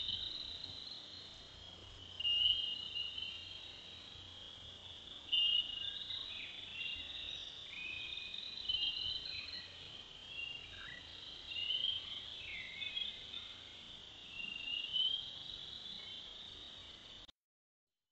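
A steady, high-pitched chorus of small creatures calling in the dark, with brighter chirps and short sliding notes standing out above it. It cuts off suddenly near the end.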